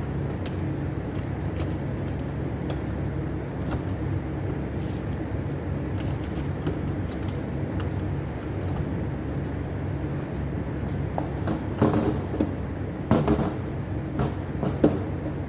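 Steady low mechanical hum, with a few short knocks and clatters in the last few seconds.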